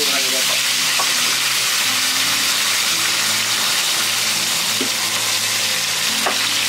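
Hot oil sizzling steadily in a frying pan as a whole stinky mandarin fish and pork belly pieces fry, with a few light pops.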